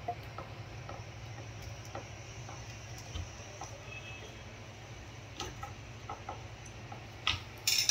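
Faint scattered light clicks and taps of hand work on cabinet fittings, over a low steady hum, with a couple of louder knocks near the end.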